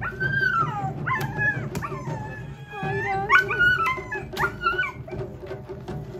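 A dog whining and howling in a run of high, wavering calls that bend up and down in pitch.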